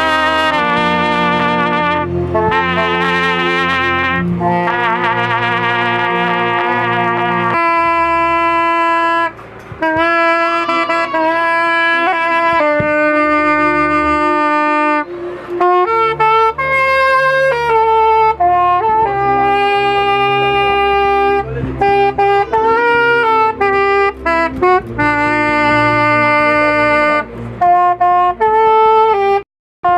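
Instrumental music: a melody of long held notes over a bass line. It cuts out briefly just before the end.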